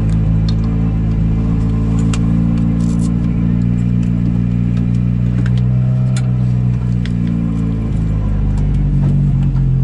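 Suzuki Swift GTi MKII rally car's 1.3-litre twin-cam four-cylinder engine idling steadily, heard from inside the cabin, with a few light clicks and knocks from the crew moving about.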